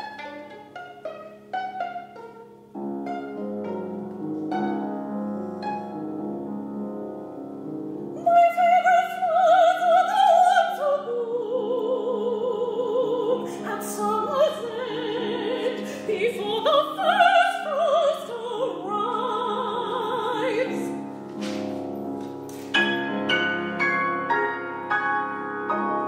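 A soprano sings long notes with wide vibrato over piano and violin accompaniment. Short detached notes open the passage, sustained chords follow before the voice enters, and short detached notes return near the end.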